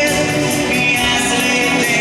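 Pop song with a sung vocal over a backing track with a steady beat.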